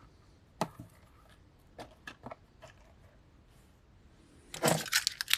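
Small plastic fidget toys being handled and set down: a few separate clicks and light knocks, then a burst of rattling and clattering near the end.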